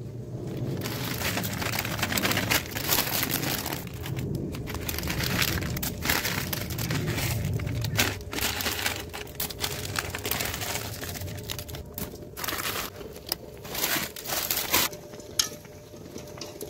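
Plastic instant-noodle packets crinkling as they are handled and emptied into a pot, with irregular sharp crackles; the crinkling thins out and gets quieter near the end.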